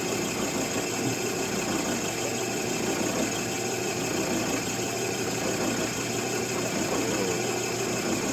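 A small motor running steadily: a constant hum with a thin high whine, holding the same pitch and level throughout.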